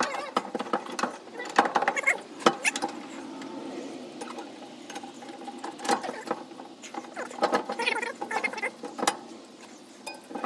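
Irregular metal clicks and clinks from hands working the U-bolts, spring plate and axle at a caravan's leaf-spring mount, with a few sharper knocks about 2.5 s and 9 s in.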